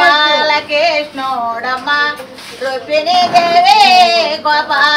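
A high-pitched voice singing a melody with wavering, ornamented notes, holding one long note with vibrato about three seconds in.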